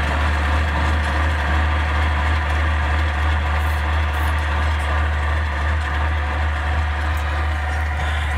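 An engine running steadily at an even speed, with a strong, unchanging low hum.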